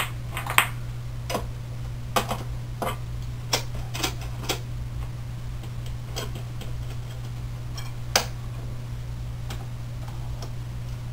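Scattered clicks and knocks of steel rods, nuts and printed plastic frame parts being handled and fitted together during a 3D printer frame assembly, irregular and a few seconds apart at most, over a steady low hum.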